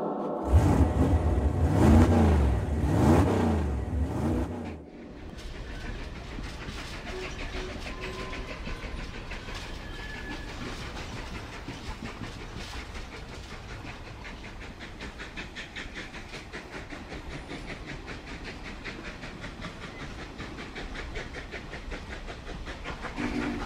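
For the first five seconds a loud sound swings up and down in pitch about once a second, then stops abruptly. After it comes the steady rumble and fast clattering rattle of a vehicle ride on a rough road.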